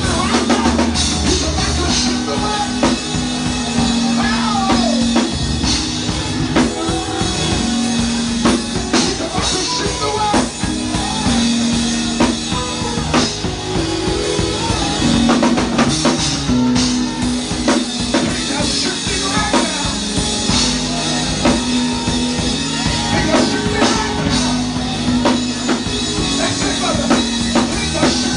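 Live church music: a drum kit playing a busy, steady beat under held chords that change every couple of seconds.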